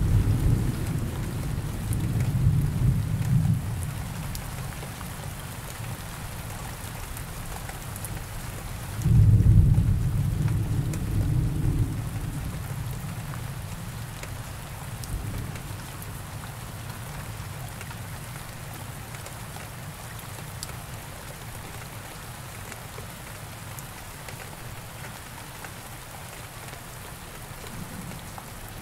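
Thunderstorm: steady rain, with a rumble of thunder dying away over the first few seconds and a second peal breaking about nine seconds in and rumbling down over about three seconds.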